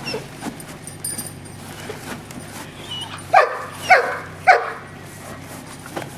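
A guard dog barking three times in quick succession, the barks about half a second apart, over a faint steady low hum.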